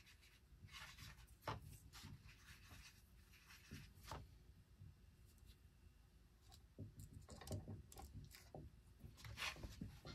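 Faint scattered taps and light rubbing from a small paintbrush working paint on a cardboard palette and onto a popper fishing lure held in the hand, with one sharper tick about a second and a half in.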